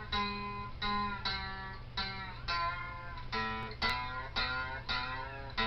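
Guitar laid flat and played lap-style with a slide: single plucked notes about two a second, each ringing and fading, with a few notes bending in pitch near the middle.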